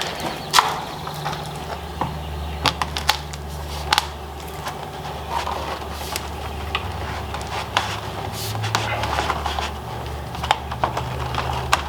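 Scattered clicks and knocks of PVC drain pipe being handled and pushed into its fittings, over a steady low hum.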